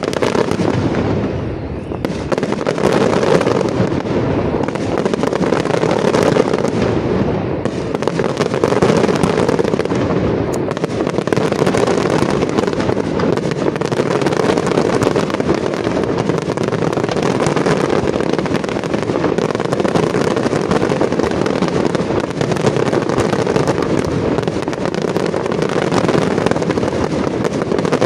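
Aerial fireworks display: a dense, continuous barrage of shell bursts, the reports coming too fast to separate, thickening about two seconds in.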